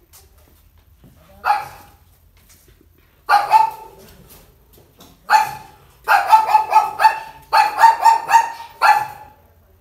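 A dog barking: single loud barks a second or two apart, then, from about six seconds in, quick runs of several barks in a row.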